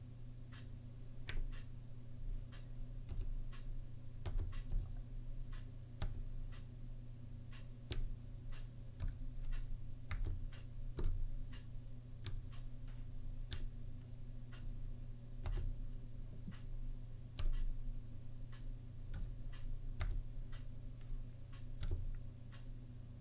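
Slow, uneven typing on a Zilpzalp ergonomic keyboard with Kaihua Twilight low-profile switches: separate sharp key clicks, a few a second, with irregular pauses between them, over a faint steady low hum.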